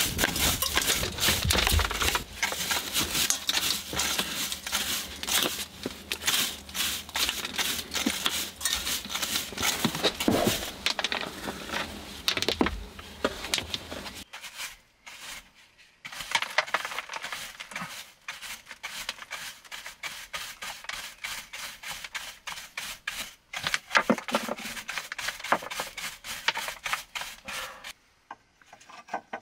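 A stiff hand brush sweeping dust and grit off stone, in rapid scratchy strokes. The sound changes at a cut about 14 seconds in, and the brushing resumes with less low rumble.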